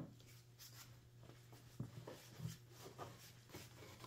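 Near silence: faint scattered light knocks and scrapes of objects being handled while a wooden piece is fetched, over a low steady hum.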